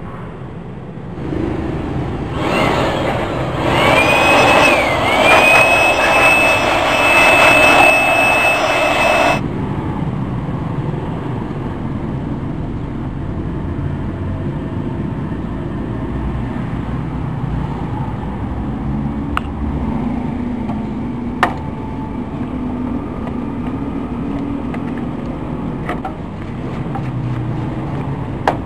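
Handheld electric blower running, blowing dust out of an open desktop computer case. The motor comes on about a second in and is loudest for several seconds, with a high steady whine over the rush of air. It then settles to a steadier, lower rush of air.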